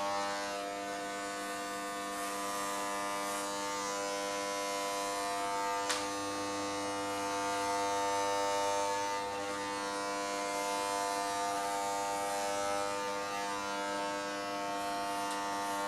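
Corded electric hair clippers running with a steady buzz as they shave hair off a head, with one light click about six seconds in.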